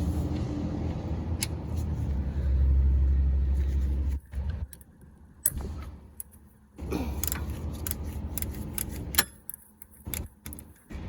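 Cordless power tool with a 12 mm socket running in two bursts, about four seconds and then about two and a half seconds, backing out the bolts of the timing chain tensioner arm and guide. Sharp metal clinks of socket and bolts between and after the runs.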